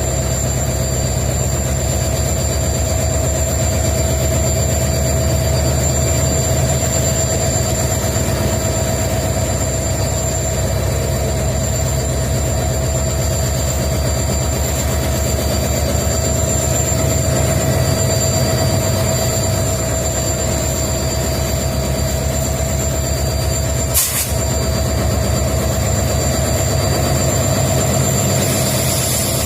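EMD WDG4 diesel-electric locomotives' two-stroke V16 diesel engines running steadily: a deep, even rumble with a steady high-pitched hum on top. A single sharp click about 24 seconds in.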